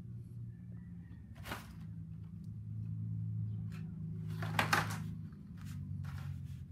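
Short rustles and light knocks from handling plastic action figures and a sheet of paper, the loudest about four and a half seconds in, over a steady low hum.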